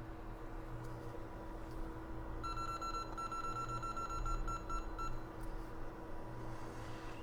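An electronic beeper sounds a single pitched tone for about a second, then breaks into a run of quick pips and stops about five seconds in, over a steady low hum of bench equipment.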